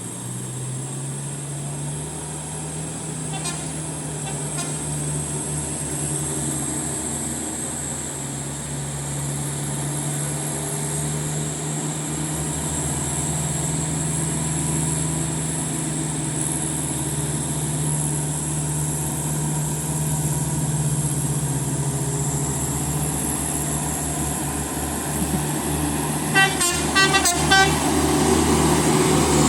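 Bus engine running steadily, slowly growing louder. About three and a half seconds in there is a faint brief burst of a telolet horn. Near the end the multi-tone telolet horn sounds loudly as a rapid run of short pulsed notes.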